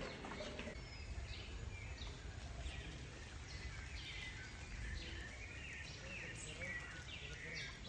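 Birds chirping over and over in short falling calls, about one a second, over a low steady rumble.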